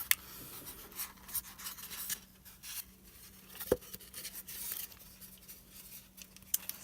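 Close-up handling sounds: rubbing, scratching and rustling with scattered light clicks. There is a sharp click right at the start and a firmer knock about three and a half seconds in.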